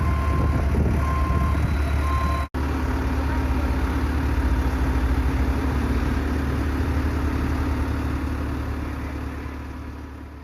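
Caterpillar 426F2 backhoe loader's diesel engine running steadily, with a back-up alarm beeping about once a second for the first two and a half seconds. The sound cuts out for an instant, then the engine carries on and fades out near the end.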